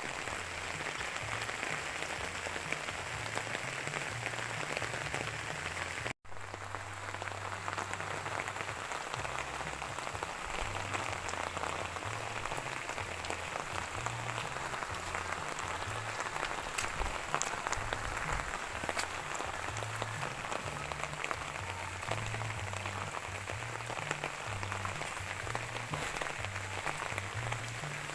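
Steady rain falling on a surface: a dense, even patter with scattered sharper drop hits. The sound cuts out for a moment about six seconds in.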